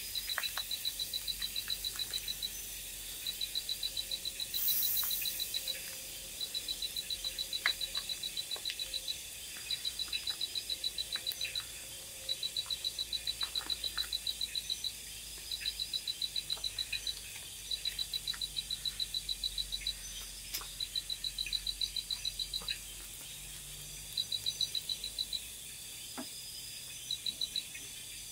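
Night chorus: a creature's rapid high-pitched pulsed call, about ten pulses a second, repeated in trains of one to two seconds over a steady high hiss of insects. A few soft crackles from the small wood fire come through now and then.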